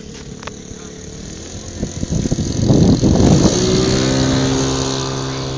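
Radio-controlled Hawker Hurricane Mk1a scale model flying past: the motor and propeller grow loud about halfway through, then settle into a steady humming tone that slowly fades as the plane moves away.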